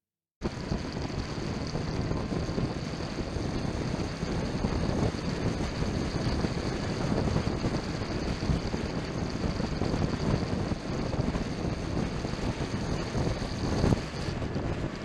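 Motorcycle riding at speed: engine and road noise under heavy wind noise buffeting the microphone, cutting in abruptly, with a brief knock near the end.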